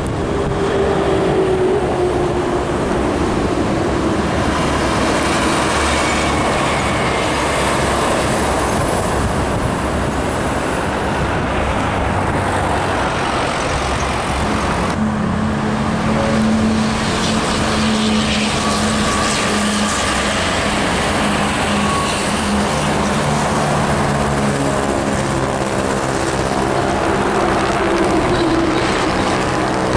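Heavy trucks and other road traffic passing on a busy road, engines running over steady tyre noise. The sound changes abruptly about halfway through.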